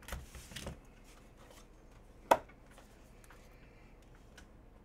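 A trading card box being opened by hand: soft cardboard rustling and scraping at first, then one sharp tap about two seconds in, with faint handling of the cards after.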